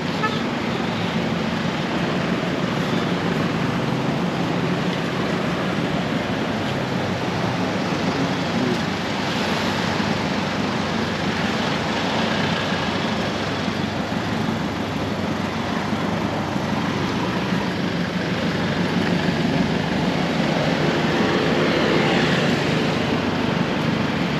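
Steady city street traffic: engines of passing cars and pickup trucks running, growing a little louder about twenty seconds in.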